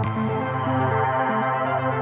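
Background electronic music on synthesizer. A crash hits at the start and fades over about a second, over a steady low bass and a repeating pattern of short notes.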